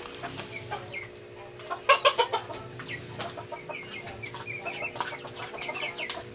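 Chickens clucking, with a quick run of louder clucks about two seconds in and a string of short higher notes near the end. A steady faint hum runs underneath.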